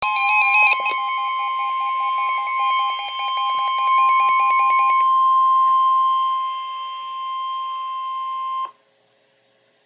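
NOAA Weather Radio emergency alert: a short burst of rapidly stepping data tones, then the steady, high alert tone that announces a severe thunderstorm warning. A rapid pulsing beep runs alongside the tone for the first five seconds, and the tone cuts off abruptly near nine seconds.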